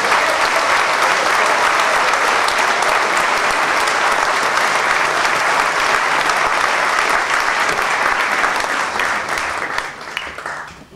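Concert audience applauding, a dense steady clapping that dies away near the end.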